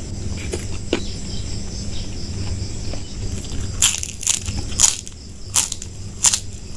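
Close-up chewing of crisp food dipped in sambal: a few soft clicks at first, then loud crunches roughly every half second to second through the second half.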